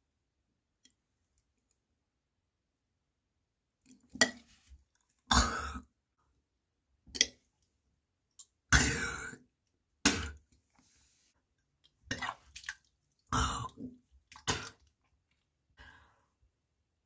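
A nauseous person's throat making irregular gagging and burping sounds, in about nine short bursts that begin some four seconds in. The longest and loudest burst comes about nine seconds in.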